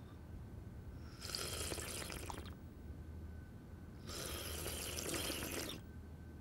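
Tea being slurped from cups and saucers: two long slurps, each about a second and a half.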